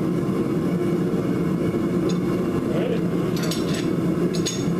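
Steady low machine drone in the smithy, with a few light metallic clicks and scrapes about two, three and a half and four and a half seconds in, as a twisting wrench turns a red-hot quarter-inch square steel bar clamped in a vise.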